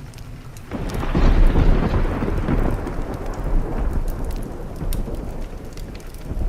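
A peal of thunder breaks under a second in and rumbles on, slowly dying away, over steady rain. Sharp crackles from a wood fire pop throughout.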